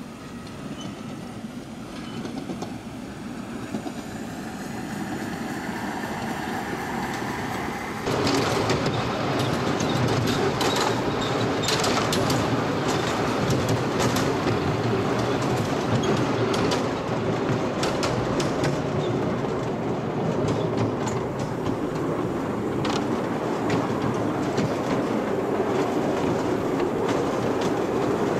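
Miniature ride-on Garratt steam locomotive running along a garden railway, growing louder as it comes closer. About 8 seconds in the sound jumps to close range, heard from the car behind, with the wheels clicking irregularly over the rail joints.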